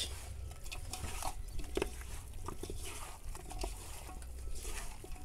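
Hands mixing and massaging raw chicken pieces in a salt, garlic and ginger marinade: irregular wet squelching with scattered soft clicks and knocks.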